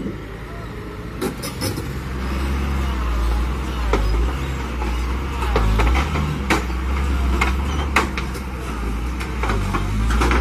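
Heavy diesel truck engine running hard with a deep steady rumble that swells and eases, with sharp knocks and clanks scattered through it.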